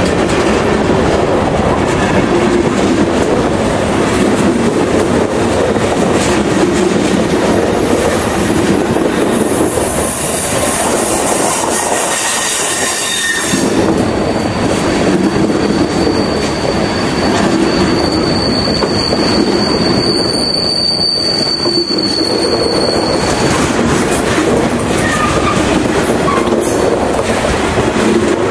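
Freight cars, hoppers and gondolas, rolling past close by on a curve, their wheels rumbling and clicking over the rail joints. Around the middle a high wheel squeal sets in and holds as one steady tone for several seconds, the flanges grinding against the curved rail.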